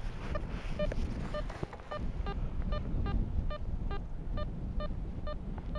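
Garrett ACE Apex metal detector beeping as its coil is swept back and forth over a buried target: short pitched beeps at about two a second, mostly at one pitch with an occasional lower or higher one. The target reads around the mid-60s to 70s.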